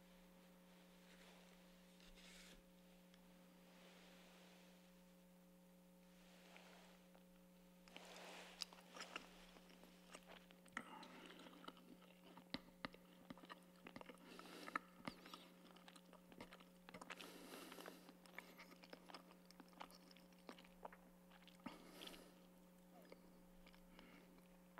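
Faint chewing and mouth clicks of a person eating communion bread close to a microphone, starting about eight seconds in, over a steady low hum.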